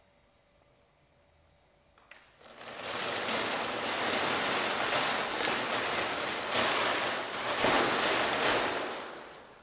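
Crinkling rustle of a silver foil sheet wrapped around a performer moving on the floor. It starts about two seconds in, builds to a steady loud hiss, and fades out near the end.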